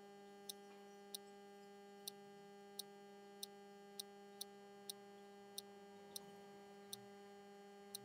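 Near silence: a faint, steady electrical hum with about a dozen soft, short clicks from computer input, spread unevenly at roughly one every half second to one second.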